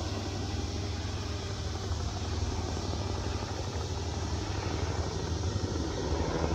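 The small electric motors and propellers of an X-Vert VTOL model plane running steadily, with wind buffeting the microphone as the breeze pushes the craft.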